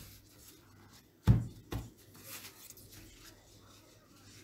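Two dull knocks about half a second apart, a little over a second in, with faint rustling of a damp paper towel being folded by hand.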